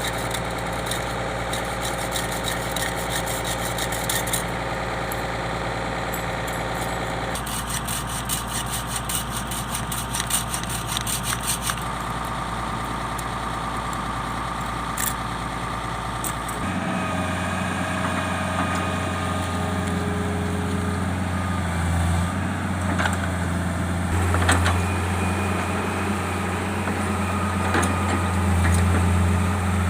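Excavator's diesel engine running steadily, with a fast metallic ticking for a few seconds in the first half. Past the middle the engine note suddenly deepens and grows louder, swelling several times as if under hydraulic load.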